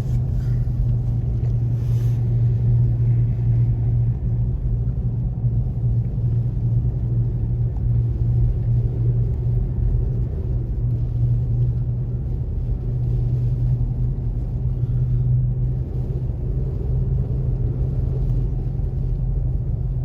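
Toyota Tacoma pickup driving along: a steady low engine and road rumble with a constant drone.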